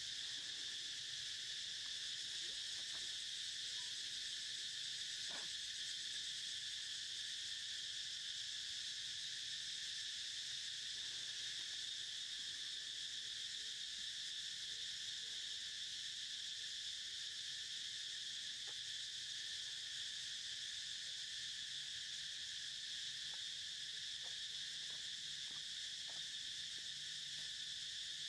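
A steady chorus of insects: a continuous high, even buzz that does not let up.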